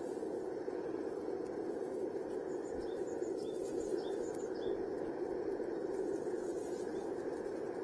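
Steady, unchanging rushing noise, with faint short chirps above it.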